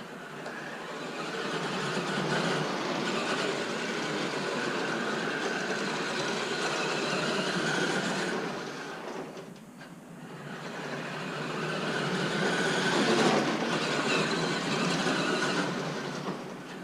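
Electric Traxxas Sledgehammer RC monster truck driving, its motor and gears whirring as it speeds up and slows. It eases off briefly about ten seconds in, then picks up again louder.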